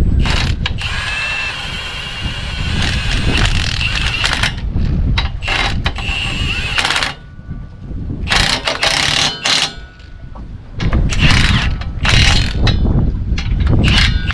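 Cordless impact wrench hammering bolts tight into a tractor's front bumper bracket, running in bursts: one long run of several seconds near the start, then a series of shorter bursts.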